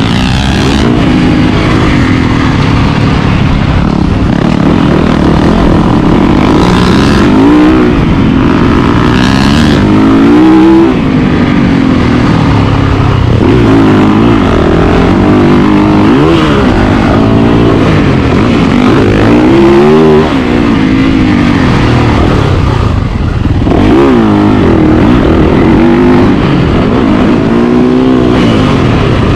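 Motocross dirt bike engine, loud, revving up and dropping back again and again as the bike is ridden through the gears and over the track.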